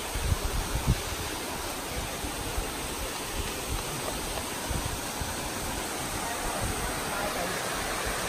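Steady rushing of a waterfall pouring into a rock pool, with a few low thumps in the first second.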